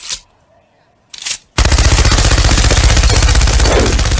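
Two short bursts of noise, then from about one and a half seconds in a loud machine gun firing continuously in rapid full-auto.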